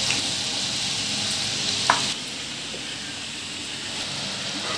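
Batter-coated snake gourd pieces deep-frying in hot oil, with a steady sizzle and hiss of bubbling oil. There is a brief clink about two seconds in, after which the sizzle is a little quieter.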